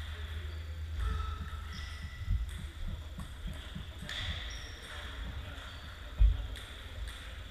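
Table-tennis hall between points: scattered light clicks of ping-pong balls from play at a neighbouring table, and dull low thuds on the wooden sports floor, the loudest one about six seconds in.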